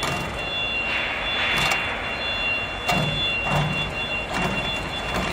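Chain link fence weaving machine being jogged: a steady mechanical hum with a constant high whine, and sharp clanks every second or so as the mechanism steps through.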